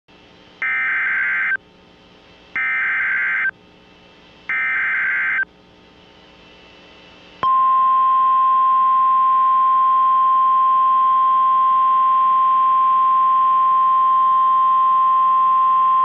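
Emergency Alert System SAME header on NOAA Weather Radio: three short bursts of warbling digital data tone, each about a second long and two seconds apart, with a faint hiss between them. About seven seconds in, the steady single-pitch NOAA Weather Radio warning alarm tone starts and holds; together they signal the start of a Special Marine Warning broadcast.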